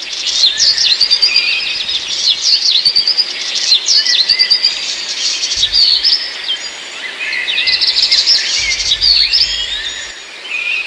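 A large flock of birds calling together: a dense, overlapping chatter of short high chirps and squeaks that swells and eases in waves.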